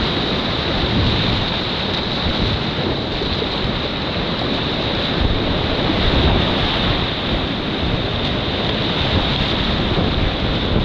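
Whitewater rapids on a rocky river rushing steadily.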